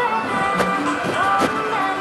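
Japanese pop ballad playing: a woman singing a gentle melody over acoustic guitars.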